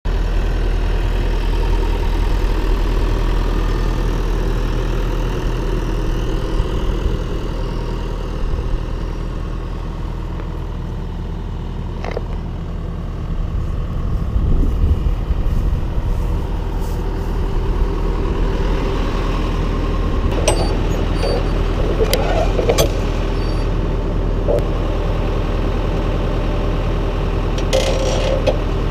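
John Deere 6403 farm tractor's diesel engine running steadily, with a few sharp metallic clicks and clanks in the second half.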